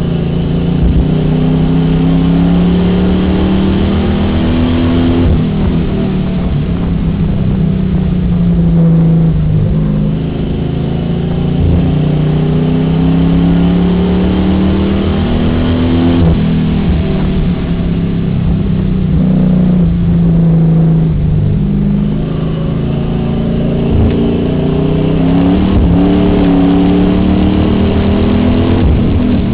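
Enduro race car's engine heard from inside the cabin, lapping a short oval: it revs up on each straight and drops off into each turn about every five to six seconds, with knocks and rattles from the car body throughout.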